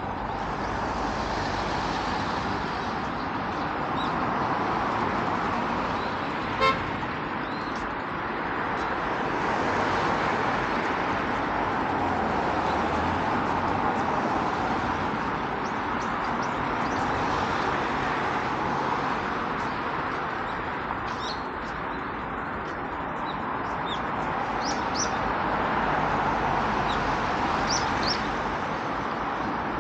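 Steady road traffic passing in slow waves, with one short car-horn toot about seven seconds in. Birds chirp a few times in the last third.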